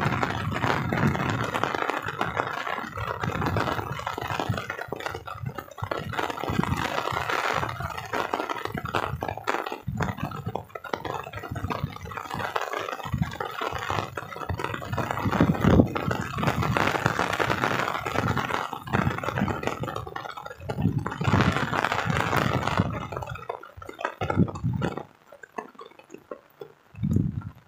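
Heavy rain falling, a steady hiss with irregular low rumbling surges on the microphone; the sound drops away sharply for a moment near the end.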